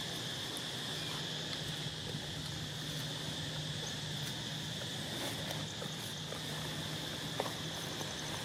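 Steady insect chorus, an even high-pitched buzz, over a low steady hum, with a faint tick about seven seconds in.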